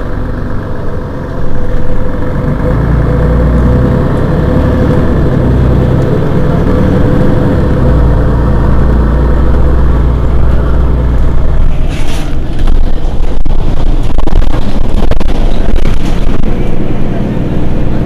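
Mercedes-Benz Citaro G C2 articulated city bus's diesel engine idling while standing at a stop, a steady low drone with a hum. A short hiss comes about two-thirds of the way in, followed by scattered clicks and rattles.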